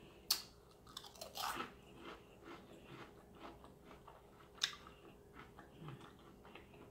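A person biting into and chewing crisp battered fried food, a few sharp crunches among quieter chewing.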